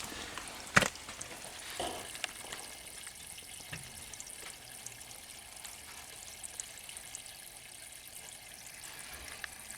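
Steady hiss of a hand-held blow dryer held on a rain barrel's outlet valve, mixed with water trickling out of the thawed valve. A couple of small knocks come in the first two seconds.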